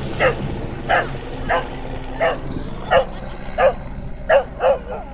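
Dog barking in short, evenly spaced barks, about eight in five seconds, coming a little closer together near the end, at a helicopter passing overhead. The helicopter's low drone fades away beneath the first barks.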